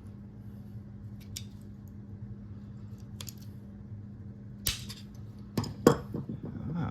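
Small metal parts clicking and clinking as an old cooler latch is worked apart by hand: a few sparse clicks, then a quick run of louder clinks and a scrape near the end, over a steady low hum.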